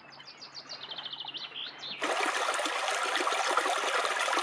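A songbird's rapid trill of short high notes, about ten a second. About two seconds in, the steady rushing of a shallow, fast-flowing stream cuts in and is louder.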